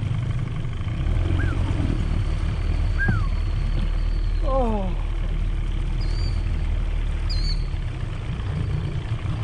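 A small boat's outboard motor runs steadily underway, with birds calling over it: two slurred downward whistles, a falling call, then a couple of short high chirps.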